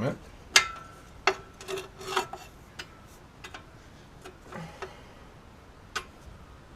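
Hand tools clinking against metal suspension bolts: a string of sharp metallic clinks and taps, the loudest about half a second in, then a last one about six seconds in.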